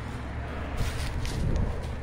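Footsteps of someone walking outdoors, a few short steps about a second in, over a low steady rumble on a handheld phone's microphone.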